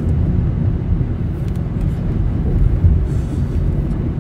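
Steady low rumble of road and engine noise inside the cabin of a moving Honda car.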